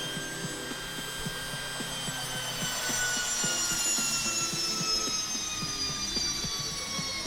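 Fuji Paudal atomizer hammer-mill pulverizer running with a high whine and a light irregular rattle; from about two and a half seconds in the whine falls steadily in pitch as the rotor winds down.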